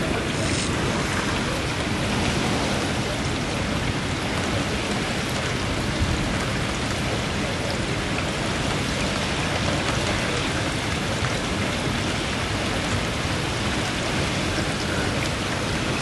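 Steady rushing noise of hurricane wind and rain outside a screened window.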